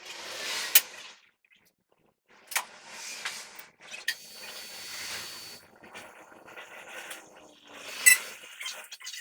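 Workshop work on metal parts: bursts of rushing, hissing noise broken by a few sharp metallic clicks, one about a second in, one near two and a half seconds and the loudest near the end.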